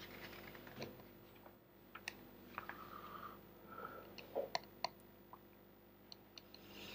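Faint room tone with a steady low hum and a scatter of small, sharp clicks and ticks, about a dozen, spread unevenly through the pause.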